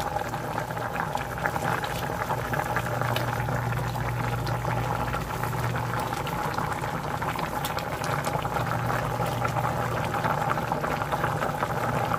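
Pork and jackfruit in coconut milk bubbling at a rolling boil in a pot: a steady mass of small pops and crackles from the frothing coconut milk.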